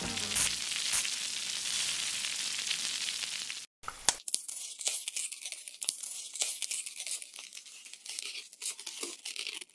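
Thin batter sizzling on the hot plate of an electric crepe maker, a steady hiss; after a short break about four seconds in, it turns into a thinner, high crackling and crinkling with small clicks as the cooked film is lifted from the plate.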